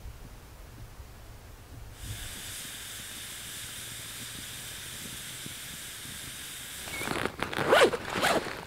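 Starting about two seconds in, a steady hiss from a campfire with skewers of beaver meat and onion roasting over it. Near the end it gives way to loud rustling and clicking as hands rummage through a backpack.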